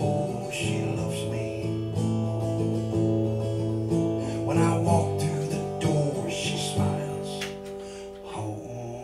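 Acoustic guitar being strummed, chords ringing, growing quieter over the last couple of seconds.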